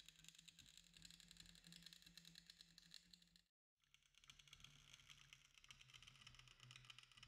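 Faint crackle of a robotic MIG welding arc depositing metal wire in wire-arc 3D printing, over a low steady hum. The sound drops out for a moment about three and a half seconds in, then the crackle resumes.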